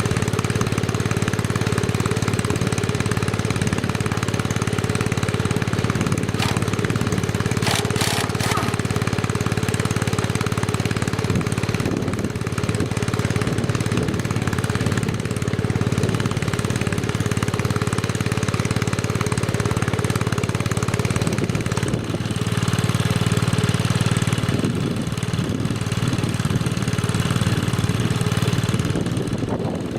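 A John Deere 110 lawn tractor's single-cylinder engine runs steadily while driving a John Deere Model 20 air compressor attachment. A short burst of sharp rattling clicks comes about eight seconds in, and the engine note shifts and grows a little louder from about 22 to 29 seconds.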